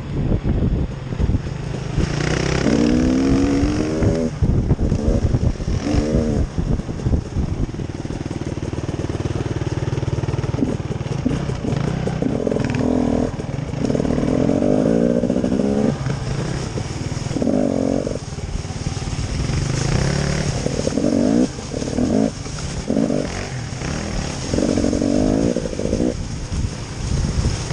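Off-road vehicle engine running under load on a trail, its note rising and falling again and again as the throttle is worked, over a steady low rumble.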